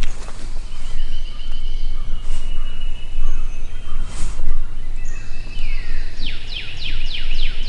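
Songbirds singing over a steady low rumble. A thin high trill runs through the first half, and a run of about six quick downslurred whistles comes near the end, with a few sharp clicks in between.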